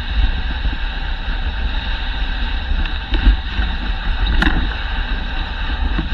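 Dog sled gliding along a snowy trail behind a running husky team: a steady hiss of the runners over the snow with wind rumbling on the camera's microphone, and a single sharp click about four and a half seconds in.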